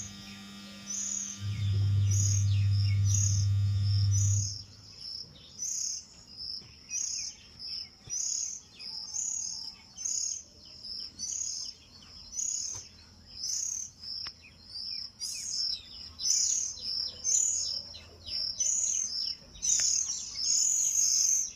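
Oriental magpie-robins giving short, high chirps over and over, about one every second or a little faster. For the first four and a half seconds a loud steady low hum runs under them and then cuts off suddenly.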